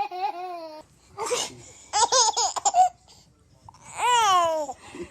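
Laughter in short bursts with a baby's high voice, ending in a high falling squeal about four seconds in.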